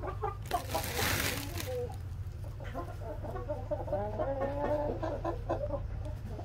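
Chickens clucking in a run of short calls through the second half, after a brief rustling hiss about a second in, over a steady low rumble.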